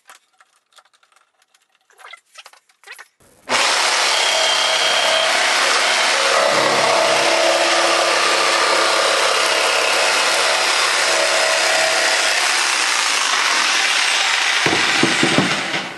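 A few light clicks and knocks as the plywood is clamped down. About three and a half seconds in, an electric jigsaw with a coarse rough-cut blade starts cutting through the plywood: loud and steady for about twelve seconds, stopping just before the end.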